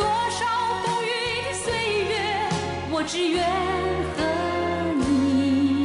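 A song playing: a singer holding long wavering notes with vibrato over instrumental backing with a steady bass.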